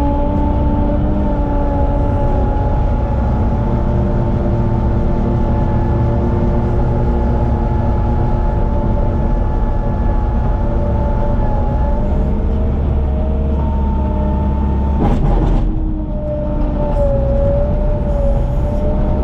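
Engine of a farm machine running steadily at high revs, its pitch shifting slightly now and then, with a single knock about fifteen seconds in.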